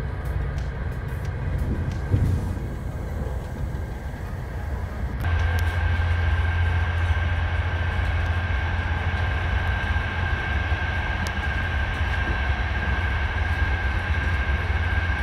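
Inside a moving passenger train carriage: a steady low running rumble with faint clicks. About five seconds in the sound changes abruptly to a louder rumble with a steady high whine above it.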